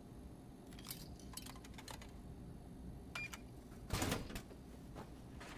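Faint scattered clicks and knocks, about eight in all, the loudest a thump about four seconds in.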